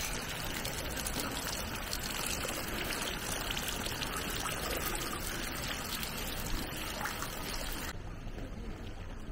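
Water from the bamboo spouts of a temizuya purification fountain falling in thin streams into its stone basin, a steady running and splashing. The bright splashing drops away about eight seconds in, leaving a duller background.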